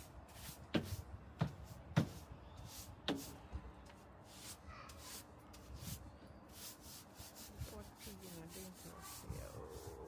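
Stiff brush sweeping a hard floor in quick repeated scraping strokes, with a few sharp knocks in the first three seconds.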